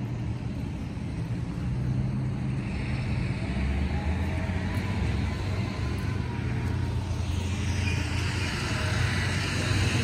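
Road traffic: a motor vehicle engine running steadily, with the noise of passing cars swelling about three seconds in and again near the end.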